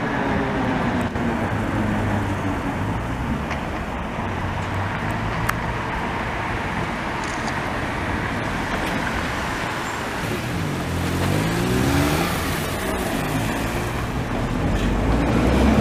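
Historic FVV 'Bengáli' articulated tram rolling slowly through a curve, its electric traction motors whining over steady road and rolling noise. The whine falls in pitch as it slows, then rises again as it picks up speed in the second half.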